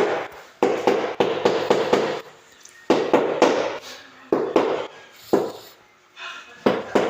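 Repeated knocking strikes on newly laid floor tiles, in groups with short pauses, some runs about three knocks a second, each knock ringing briefly: tiles being tapped down to bed them in the mortar.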